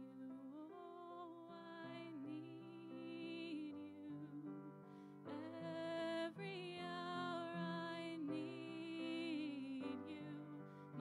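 Contemporary worship song: a singer holding long, wavering notes over sustained keyboard chords, growing fuller and louder about five seconds in.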